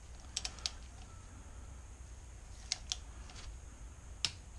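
Click-type torque wrench clicking as cam phaser lockout bolts are tightened to 145 inch-pounds: three quick sharp clicks about half a second in, a pair near three seconds, and one more near the end.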